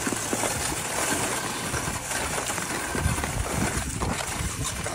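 Continuous scraping hiss of a metal folding chair's legs and ice-skate blades sliding over rink ice, with wind rumbling on the microphone.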